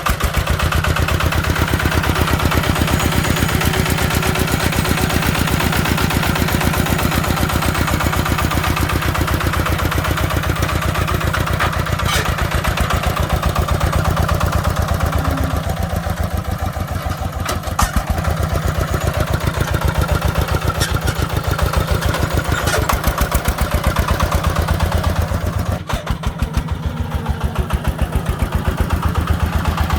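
Single-cylinder diesel engine of a công nông three-wheeled farm truck running steadily with a rapid, even beat, with a few brief sharp clacks.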